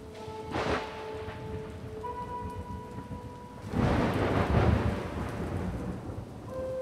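Thunderstorm sound effect: steady rain with rolls of thunder. There is a short crack about half a second in and a longer, louder rumble about four seconds in, with a few held tones of eerie music underneath.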